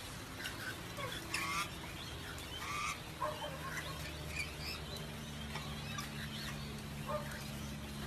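Parrots, sulphur-crested cockatoos and a galah, giving short scattered squawks and chirps, strongest about a second and a half in and again near three seconds, over a low steady hum.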